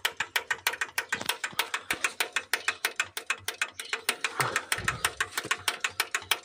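Hand priming pump on a tractor's diesel fuel system being worked rapidly, a steady train of sharp mechanical clicks about eight a second. It is bleeding air out of the fuel filters through a loosened bleed screw; with air left in the lines the diesel will not start.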